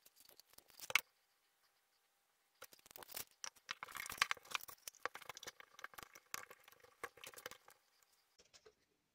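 Handling noise: insulated wires and a small circuit board rustling and clicking against a plastic jar as they are fed through and fitted inside, with a silent break after the first second.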